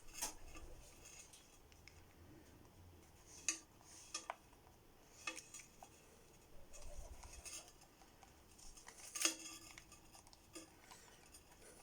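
A few scattered light clicks and taps from a Swiss Army knife and ferro rod being handled in a leather case, separated by quiet handling.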